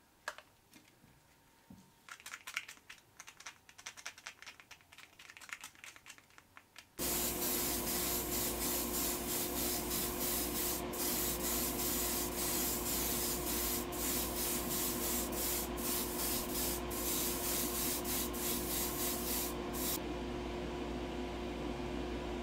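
A small paint bottle shaken by hand, rattling for several seconds. About seven seconds in, a steady motor hum starts, and an airbrush sprays over it with a pulsing hiss that eases off near the end.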